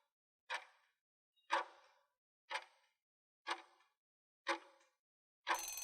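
Ticking timer sound effect: five clock-like ticks, one a second, then a bell starts ringing near the end, typical of a quiz countdown running out.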